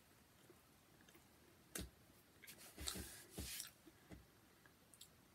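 Faint chewing and wet mouth clicks of a man eating a soft donut, a few short smacks coming mostly a little before the middle, over near silence.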